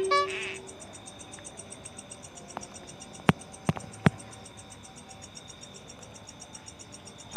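Crickets chirping steadily in an even, rapid rhythm over a continuous high insect drone. A short tonal sound sounds right at the start, and three sharp clicks stand out between about three and four seconds in.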